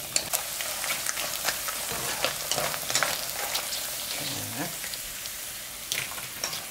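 Dried chili pepper fritters (gochu bugak) frying in shallow oil in a wok: a steady sizzle with frequent small crackles, as the nearly done fritters are scooped out with a mesh skimmer.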